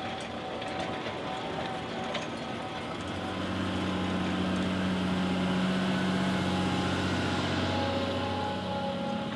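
Large farm tractor's engine running steadily as it pulls a subsoiler through the soil. It grows louder about three seconds in, then eases off near the end.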